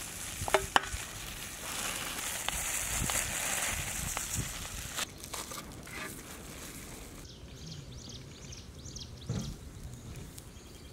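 Aluminium foil bags crinkling and rustling as they are handled and tied, with a few sharp clicks near the start. After about five seconds it drops to a quieter outdoor background.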